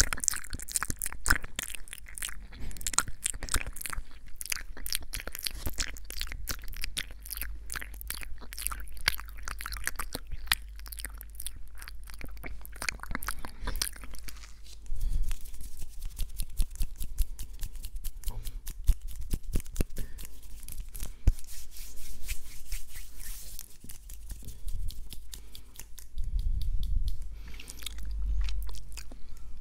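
Close-miked ASMR mouth sounds: rapid wet clicks and smacks, dense for the first half and sparser after.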